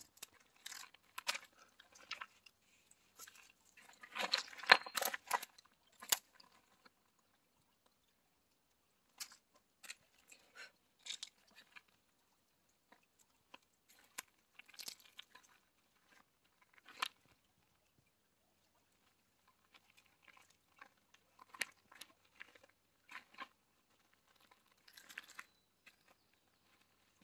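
Footsteps over rocks and gravel, with crunching, scuffing and rustling through plants in irregular bursts and pauses; the loudest patch of crunching and rustling comes about four to five seconds in.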